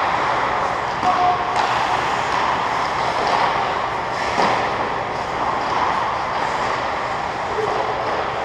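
Ice hockey rink ambience during play: a steady hiss of skating and distant players on the ice, with a couple of sharp knocks about one and a half and four and a half seconds in.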